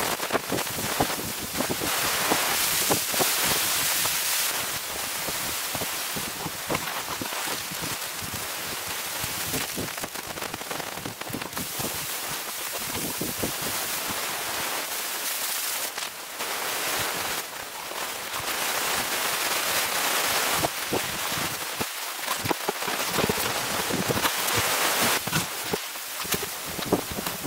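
Splitboard moving over snow: a steady hiss with many small crunches and clicks, louder at the start and near the end.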